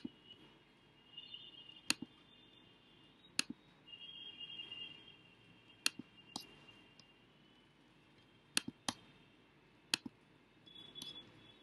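Computer clicks, about eight scattered sharp single clicks, two of them in quick pairs, as windows are switched on a computer. A faint high whine comes and goes between them.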